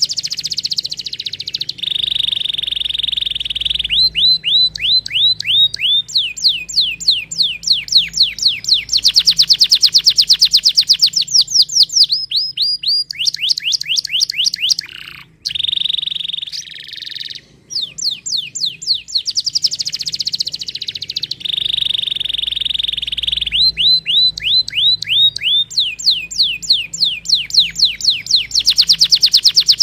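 Domestic canary singing a long trilled song: fast runs of quickly repeated falling notes alternating with steady, even rolls, with two brief breaks just past the middle.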